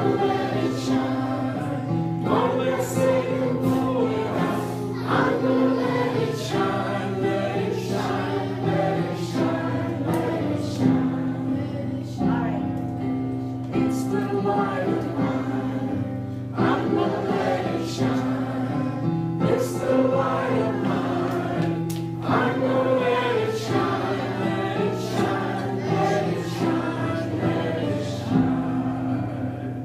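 Music: a Christian song with a choir singing over held accompaniment chords.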